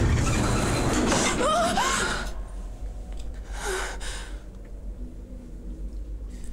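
A woman gasping: a long, loud, breathy gasp with a wavering cry rising in pitch in the first two seconds, then a shorter gasp about halfway through.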